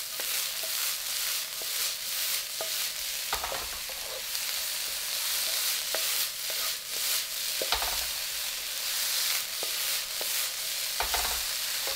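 Shredded carrot, green pepper and wood ear mushroom sizzling in oil in a wok, stirred with a wooden spatula that scrapes and taps against the pan. Three dull thuds, about four seconds apart, as the wok is shaken on the gas burner.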